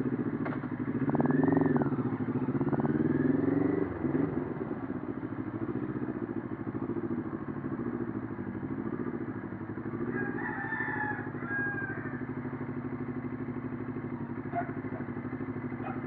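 CFMoto 400NK's parallel-twin engine running just after starting, revved up and down twice in the first four seconds, then running steadily at low revs. A rooster crows about ten seconds in.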